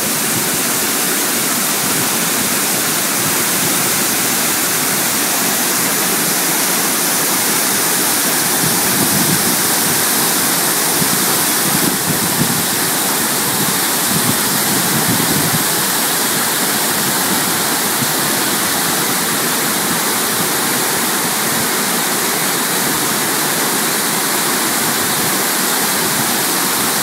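Large waterfall cascading over stepped rock ledges into a pool close by: a loud, steady, unbroken rush of falling water.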